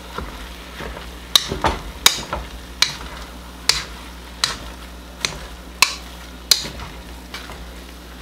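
Wire potato masher pressing corned beef hash into diced potatoes in a nonstick pot, its metal head clacking against the pan bottom about every three-quarters of a second. A faint sizzle of the hash cooking on low heat runs underneath.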